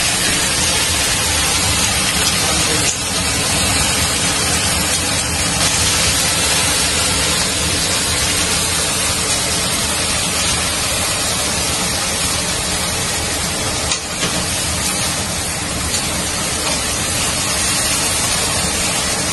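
Beef steaks sizzling in a hot frying pan, a loud, steady hiss.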